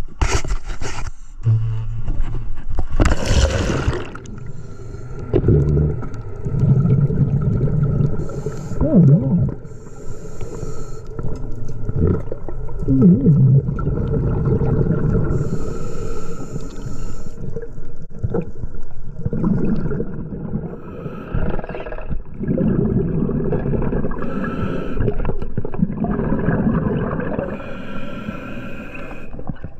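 A splash as the diver enters the water about three seconds in, then underwater breathing through a scuba regulator: bursts of exhaled bubbles rumbling low, with short hissing inhalations between them.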